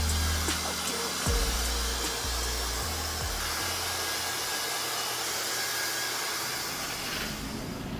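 Dyson Supersonic hair dryer blowing steadily as hair is dried, an even airy rush. Background music's bass fades out in the first few seconds.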